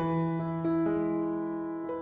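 Background piano music: slow, gentle sustained chords, with a new note entering about half a second in and the notes fading gradually.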